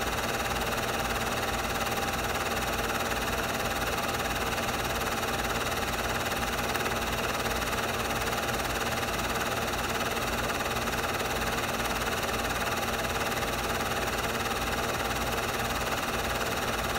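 Steady whir and hiss of a film projector running, unchanging throughout.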